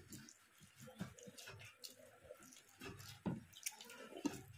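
Close-up eating sounds of curry and rice eaten by hand: irregular wet chewing and lip smacking, with a few soft knocks.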